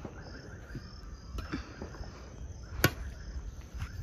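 Crickets chirping in a steady pulsing trill, with a few sharp taps, the loudest a little under three seconds in, over the low rumble of a handheld phone being moved.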